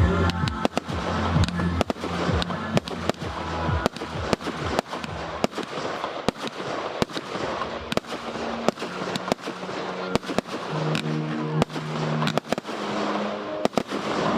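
Fireworks display: a rapid run of bangs and dense crackling from exploding shells, mixed with music in the show's soundtrack.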